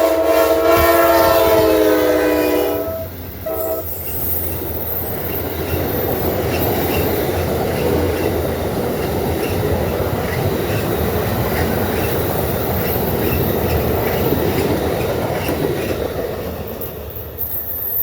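A locomotive air horn sounds one long chord of several tones, cuts off about three seconds in and gives a short second blast, then the train rolls past with steady rumble and wheel clatter on the rails.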